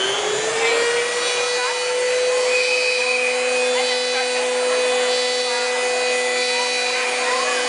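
Shapeoko 2 CNC router's spindle motor spinning up with a rising whine that settles into a steady high running tone. A second, lower steady tone joins about three seconds in as the machine starts cutting.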